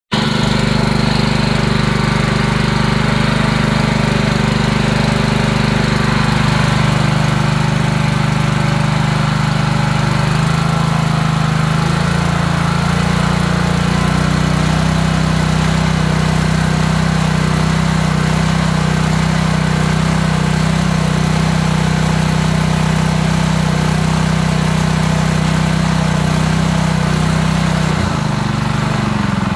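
Honda single-cylinder engine on a pressure washer running steadily. Its pitch steps up slightly about ten to twelve seconds in and wavers briefly near the end.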